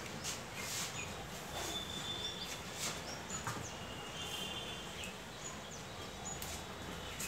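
Room noise with faint, short bird chirps and a few light metallic clicks as loose nuts and bolts are gathered from a tiled floor.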